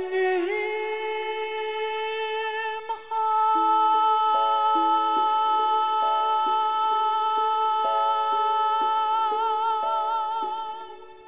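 Male vocalist singing one long sustained note into a microphone over a backing track of repeated chords. The note grows louder about three seconds in, takes on vibrato near the end, and fades out.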